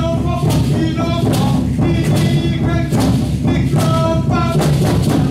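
Aztec dance music: a steady, loud drumbeat with sharp strikes falling in time and a short-phrased melody over it.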